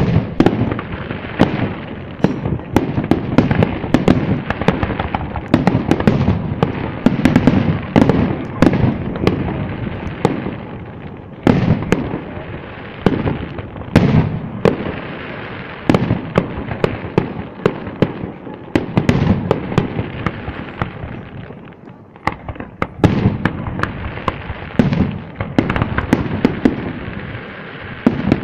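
Aerial fireworks display: shells bursting one after another in sharp bangs over a continuous low rumble. The bangs thin out briefly about three quarters of the way through, then pick up again.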